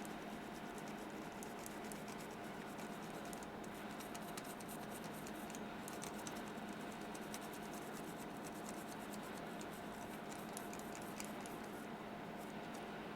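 Faint, fine scratching and rapid ticking of small hand tools working on a circuit board, over a steady electrical hum.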